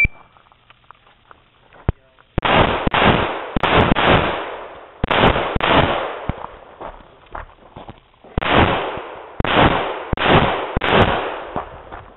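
Handgun shots fired in three strings of roughly a dozen rounds, mostly in quick pairs, each report with a ringing echo.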